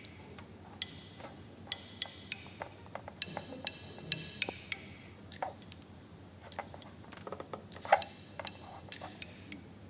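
Faint, irregular clicks and light taps, a few a second, with a louder tap about eight seconds in.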